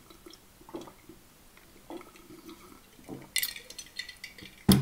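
A drink being sipped from a glass jar, with ice clinking against the glass and a short rattle of ice about three and a half seconds in as the jar is lowered. Near the end comes one sharp knock, the loudest sound here.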